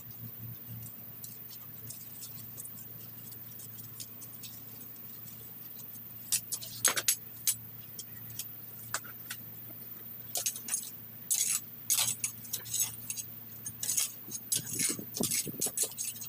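Hand weeding: a metal hand weeding tool scraping and clinking, and weeds being torn and rustled out of bark mulch. There are sparse ticks at first, a few scratchy bursts about six seconds in, then busy scraping from about ten seconds on, over a low steady hum.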